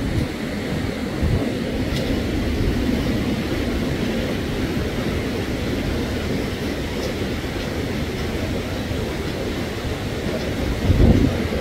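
Wind buffeting the microphone outdoors: a steady low rumble that swells in a stronger gust near the end.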